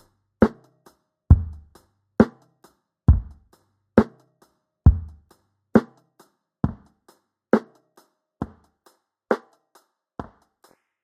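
A drum loop playing back, with kick and snare alternating a little under a second apart and light in-between hits. About halfway through, the low end of the kick drops away and the hits grow thinner: the loop is being EQ'd to leave the snare on its own.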